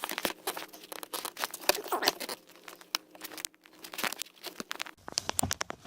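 Hands working the plastic electrical connector off an HVAC blower motor: a quick, irregular run of small plastic clicks, taps and scrapes as it is wiggled and pulled loose.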